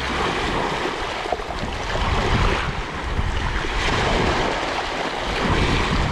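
Sea surf: a rushing wash of waves that swells and eases several times.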